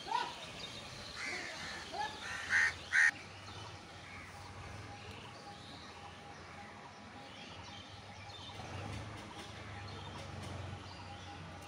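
House crows cawing: a few short, harsh calls in the first three seconds, the loudest two close together about three seconds in, then quieter.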